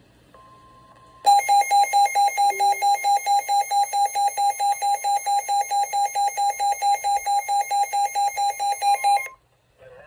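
Midland weather alert radio sounding its alarm for a tornado warning: a loud, rapidly pulsing beep, about five pulses a second, starting just over a second in and cutting off abruptly near the end. A faint steady tone is heard just before the alarm starts.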